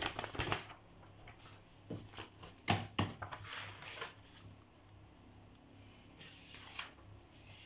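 Sheets of paper rustling and sliding on a desk as pages are turned over and laid down, with a sharp tap about two and a half seconds in.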